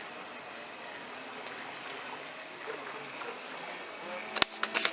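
Steady outdoor hiss, then about four seconds in a sharp crack followed by a quick run of several smaller cracks: model warships' gas-powered cannons firing BBs.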